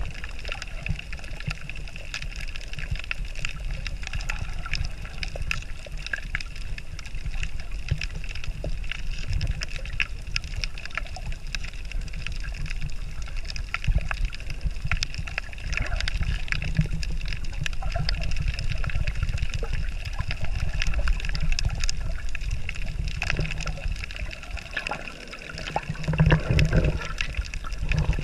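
Underwater water noise from a snorkel over a reef: a steady low rumble of moving water with many scattered faint clicks and crackles. Near the end come louder low surges of sloshing and bubbling as the view nears the surface beside a snorkeler.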